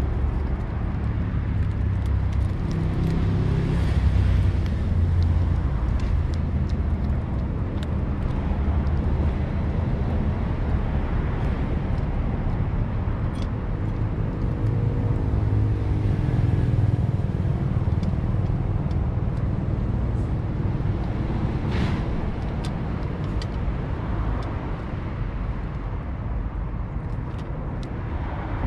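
Steady low rumble of road traffic. About halfway through, a passing vehicle's engine hum stands out for a few seconds.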